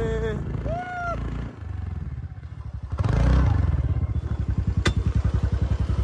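Motorcycle engine running with an even, rapid low throb that grows louder about three seconds in.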